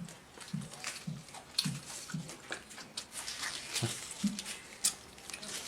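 Close-up eating sounds: wet lip-smacking and chewing of sticky rice zongzi, with short low mouth noises about every half second and light crinkling and rustling of the reed-leaf wrapper being peeled off another zongzi.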